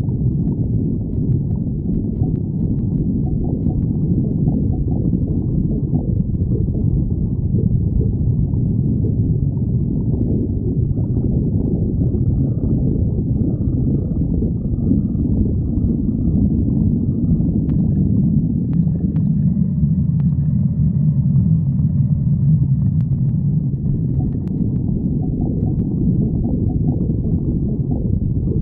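Stomach growling and gurgling, heard close and loud: a continuous low rumble that swells into a longer, deeper growl about two-thirds of the way through.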